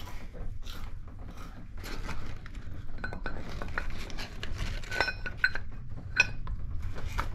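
Metal clinks and taps from a new diesel engine piston and its piston pin and connecting rod being handled and fitted together. There are several sharp clinks with a brief ring, the loudest about five and six seconds in, over a low steady hum.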